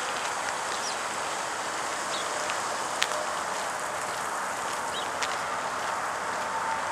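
Steady outdoor noise haze with a few brief, faint high bird chirps, and two sharp clicks, one about three seconds in and one about five seconds in.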